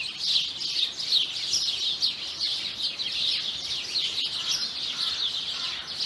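Small songbirds twittering: a continuous, quick run of high chirps, several a second.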